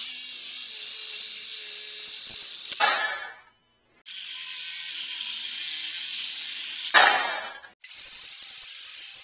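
Angle grinder cutting a metal rack tube clamped in a vise: a loud, steady hissing grind with a faint motor whine. Twice, at about three and seven seconds, a louder burst comes and the sound winds down as the grinder spins down. Near the end it runs more quietly.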